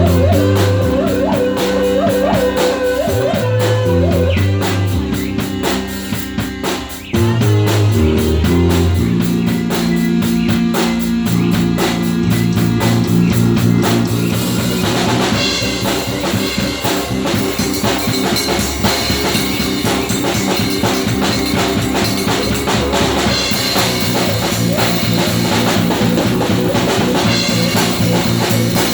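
Rock music with drum kit, bass and guitar, a steady beat; it drops briefly and comes back in about seven seconds in.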